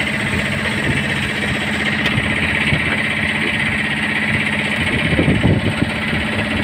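Fishing boat's engine running steadily with an even, rapid beat.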